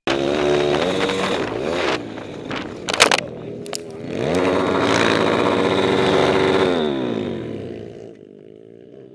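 Pit bike engine running hard, its revs dropping before two sharp impacts as the bike crashes into the dirt about three seconds in. The engine then revs up and holds high for a couple of seconds before falling away to a faint low running sound near the end.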